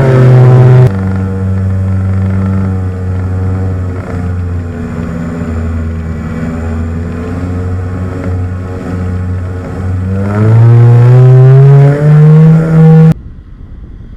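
Twin propeller motors of an RC model Beechcraft Duke heard from inside the airframe, a loud droning note that drops as the throttle comes back about a second in, holds steady, then climbs as the throttle is opened again near the end before cutting off abruptly.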